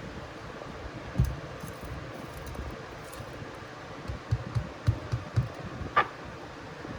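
Several dull low knocks, one early and a quick cluster later, and a single sharp click near the end, over a steady fan-like hum.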